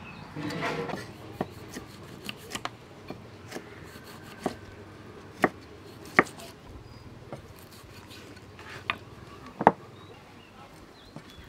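Kitchen knife cutting limes on a thick wooden chopping block: about ten sharp knocks at uneven intervals as the blade goes through and strikes the wood, two of them much louder than the rest.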